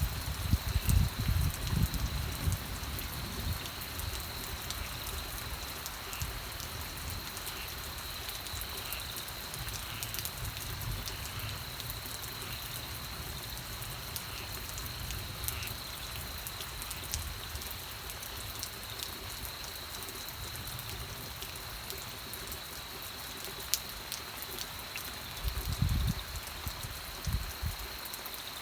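Steady rain falling, with many separate drops ticking on a surface over an even hiss and a faint steady high tone. Low rumbles come through in the first few seconds and again near the end.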